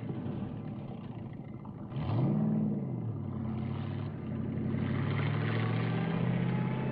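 1970 Dodge Challenger's V8 engine running, with a sharp rise in revs about two seconds in that eases back to a steady lower note.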